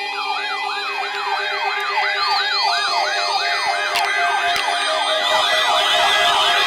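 Several weather alert radios sounding siren-style alarms at once, triggered by a NOAA Weather Radio required test alert. The main alarm is a fast repeating rising whoop, about three a second, with a second, higher siren overlapping it, and a single click about four seconds in.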